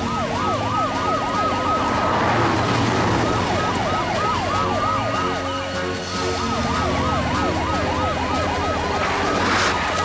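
Several cartoon emergency-vehicle sirens sounding together, a fast yelp of quick rising-and-falling sweeps, several a second, with a slower wail showing through in places.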